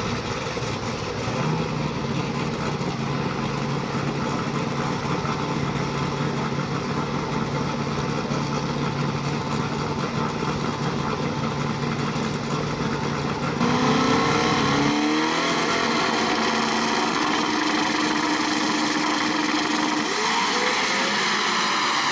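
Big-turbo Cadillac ATS-V drag car's engine idling steadily at the starting line. About two-thirds of the way in it gets louder, with the pitch sweeping up and down as it revs and pulls away down the track.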